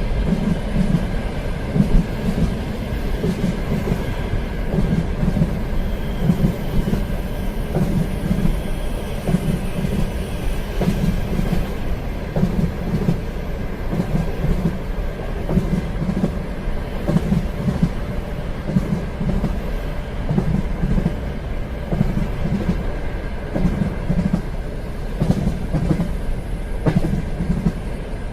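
Train running along the rails: a steady low rumble with a rhythmic clickety-clack of wheels over rail joints about once a second, a faint steady whine and light scattered clicks.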